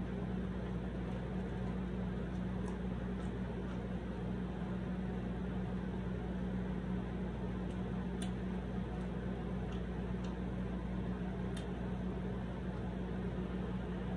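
Steady mechanical hum of room machinery, a low even drone with a fan-like hiss over it, with a few faint clicks.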